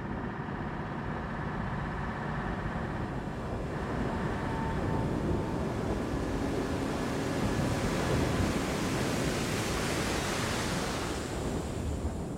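Steady roar of a burning oil well blowout, mixed with the rushing hiss of water streams sprayed onto the fire; it swells a little after a few seconds.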